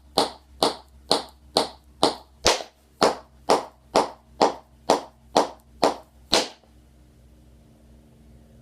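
Tap shoes' metal taps striking the floor in single digs, an even beat of about two sharp strikes a second, some fourteen in all, stopping about two-thirds of the way through.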